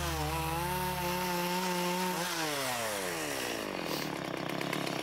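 Small carving chainsaw at high revs cutting into a wooden block, its engine note steady, then the pitch falls away as the throttle is let off a little over two seconds in.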